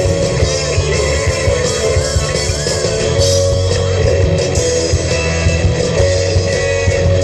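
Live rock band playing through a PA: electric guitars over bass and drums.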